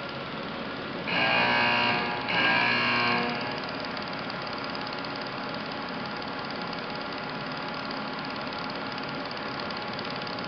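TIP TIG welding arc with vibrating hot-wire feed, running steadily while a root-to-cap weld is laid on Inconel 800 pipe with Inconel 82 wire. About a second in, two louder stretches of a steady pitched hum, each about a second long, sit on top of it.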